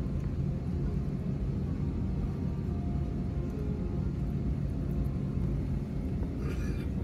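Steady low rumble of a vehicle, with a brief hiss about six and a half seconds in.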